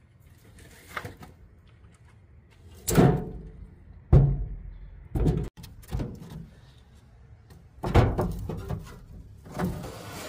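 Dry firewood sticks and branches being laid and stacked into a fire pit: a series of irregular wooden knocks and thumps as the pieces strike one another.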